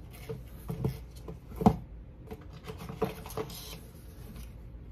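Small clicks, taps and rustles of cosmetic packaging being handled on a desk. The loudest is a knock about a second and a half in, and a brief crinkle follows later.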